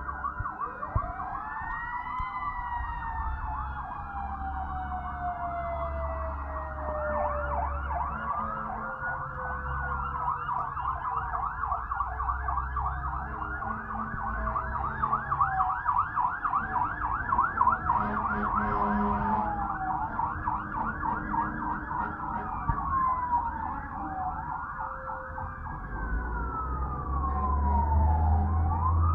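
Several fire truck sirens sounding at once: long rising-and-falling wails, with a fast yelp pattern through the middle, over a low engine rumble.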